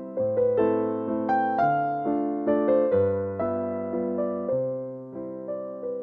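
Background piano music: a melody over chords and bass notes, each note struck and then fading.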